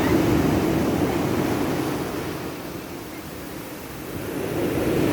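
Rough sea surf washing onto a beach in a storm, with wind; the rush eases off in the middle and builds up again near the end.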